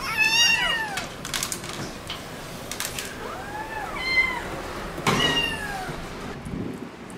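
Young kittens crying from inside a plastic pet carrier: about four rising-and-falling meows, two overlapping at the start and two more later on, with a few light clicks in between.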